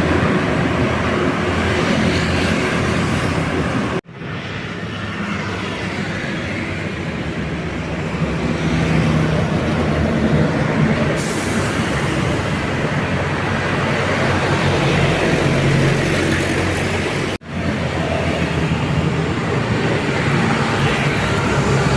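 Road traffic with buses passing: a steady rush of engine and tyre noise. The sound breaks off abruptly twice and picks up again.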